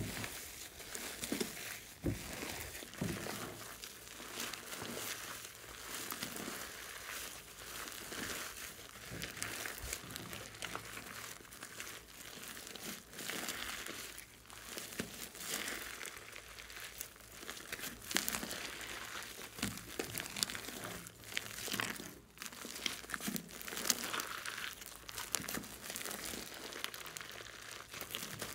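Foamy slime being kneaded, stretched and squeezed by hand in a glass bowl, making a continuous fine, wet crackling.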